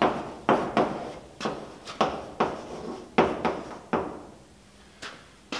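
Chalk writing on a blackboard: a quick run of sharp chalk strokes and taps, about two a second, that stops about four seconds in. Two more strokes come near the end.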